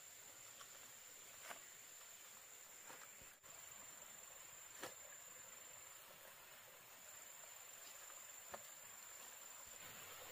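Near silence with faint insects chirring, a steady high-pitched tone. A few soft clicks are heard, about a second and a half in, near the middle and near the end.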